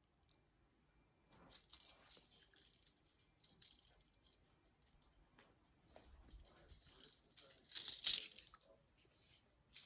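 Faint rustling and scattered light clicks, with a louder rustle about eight seconds in.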